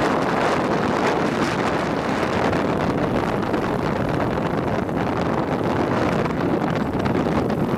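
Wind rushing over the microphone of a camera moving along a road, a steady loud noise, with the travel noise of the vehicle mixed in.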